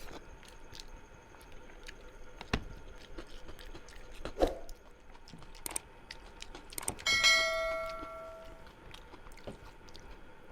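Eating sounds: scattered chewing and mouth clicks, with a few soft knocks. About seven seconds in, something metal, such as a dish or utensil, is struck and rings, fading over about a second and a half.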